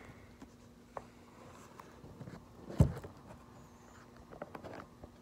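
Handling noise from a camera being moved and set down on a cloth-covered table: scattered light scrapes and taps, with one sharp thump a little under three seconds in.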